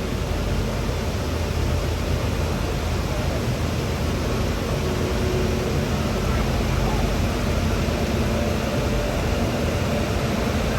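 A train running at a station: a steady low rumble with hiss and no clear changes.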